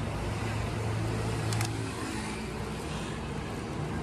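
Street traffic noise with a motor vehicle running nearby; its low hum dies away about two seconds in. A short sharp click sounds about a second and a half in.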